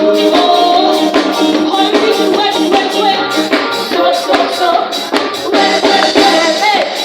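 Upbeat music with group singing over rattling hand percussion keeping a steady beat.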